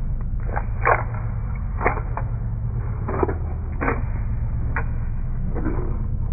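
Short, sudden scrapes and taps of a metal stylus and art tools against a painted board, coming irregularly about a second apart, over a steady low hum.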